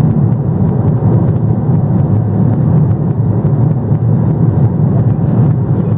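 Steady low rumble of a Boeing 777 airliner's cabin in flight: the constant drone of the engines and rushing air heard from inside the passenger cabin.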